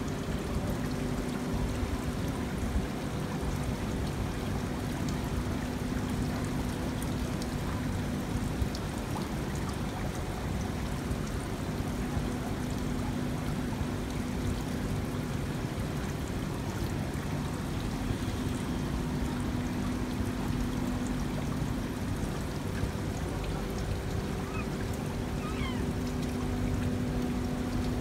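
Water running down a stone water-wall fountain: a steady trickle and splash, with a low hum that comes and goes.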